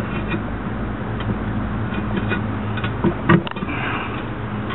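Steel tire irons knocking and scraping against a steel split-ring truck rim as the tire bead is pried up, a few sharp clinks with the loudest about three and a half seconds in, over a steady low hum.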